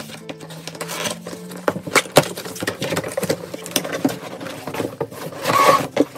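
Cardboard doll box and its plastic packaging being handled: a run of quick clicks, taps and rustles as the box is opened, with a longer scraping rustle near the end as the inner tray slides out.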